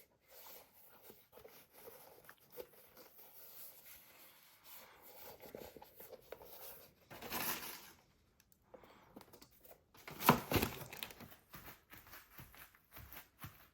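Packaging being handled: paper rustling and crinkling with small clicks and taps. There is a louder swish about seven seconds in and a louder rip or crumple about ten seconds in.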